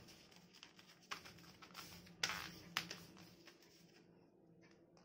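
A sheet of paper being handled and folded by hand: soft rustling with a few sharper crinkles, one about a second in and the loudest a little after two seconds, over a faint steady hum.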